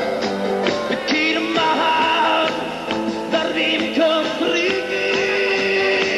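A live band playing a rock song with singing, electric bass, keyboards and drums.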